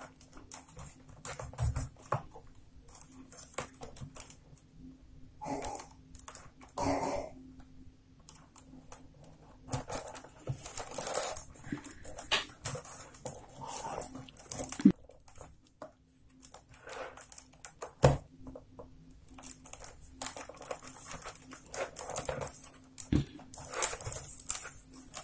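Rolled newspaper tubes rustling and scraping as they are pushed and pulled through a woven paper-tube border, in irregular bursts with a few sharp clicks.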